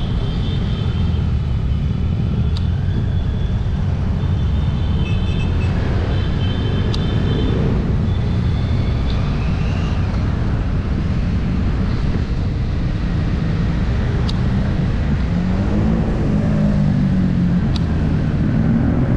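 Steady wind rumble on the microphone of a camera mounted on a bicycle riding at about 20 km/h, with road and traffic noise underneath. High chirping comes and goes in the first half, and a vehicle engine hums, rising and falling, in the last few seconds.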